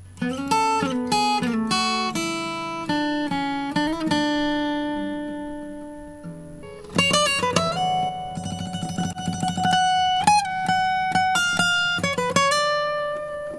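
Recorded plucked acoustic guitar played back in two short melodic phrases, the second starting about seven seconds in. The recording runs through a compressor set to a fast attack, so its note peaks are held down.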